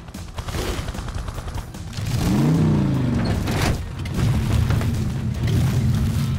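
Cartoon action music with heavy rumbling mechanical sound effects as a tow truck strains to haul a fallen tree on a cable. A pitched sound rises and falls about two seconds in.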